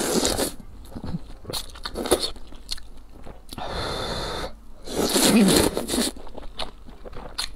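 A person slurping wide noodles out of spicy broth: several long, wet sucking slurps, the loudest about five seconds in, with chewing and small mouth clicks between them.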